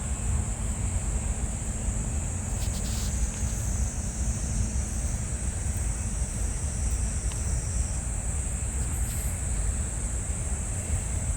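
Wind rumbling on the microphone over a steady, high-pitched chorus of crickets.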